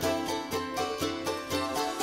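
Background music of plucked strings, banjo or mandolin-like, with a steady beat.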